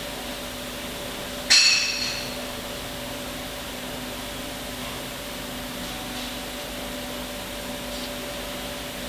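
A single sharp metallic knock that rings briefly, about one and a half seconds in, over a steady low hum.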